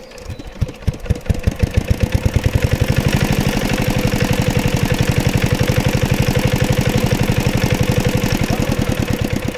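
Small engine of the pond's water pump starting up. It runs up over the first two to three seconds and settles into a steady, fast chugging.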